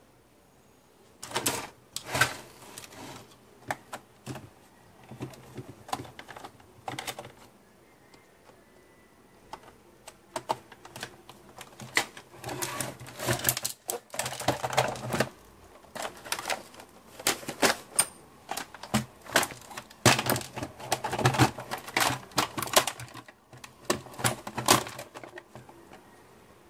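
Hard plastic parts of a robot vacuum clicking, knocking and rattling as it is taken apart by hand with a screwdriver and its top shell is worked loose. The clicks come irregularly, in denser flurries in the middle and towards the end.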